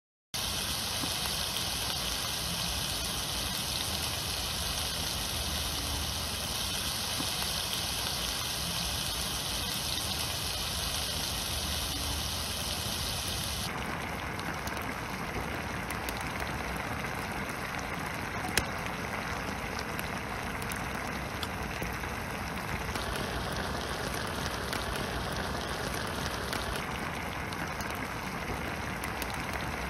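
A steady hiss fills the first half. About 14 seconds in it changes to the bubbling and sizzling of a spicy braised chicken stew boiling hard in a wide cast-iron lid griddle over a fire, with an occasional sharp crackle.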